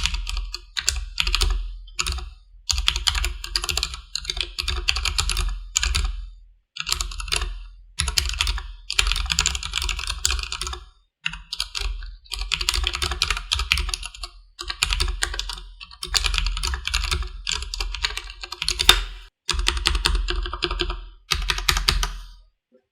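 Durgod Taurus K320 tenkeyless mechanical keyboard with stock Cherry MX Black linear switches, typed on quickly in runs of keystrokes with short pauses between them. The typing stops near the end.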